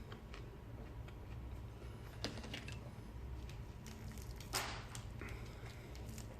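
Quiet eating at the table: a few faint clicks and a soft, wet squish about four and a half seconds in, over a low steady room hum.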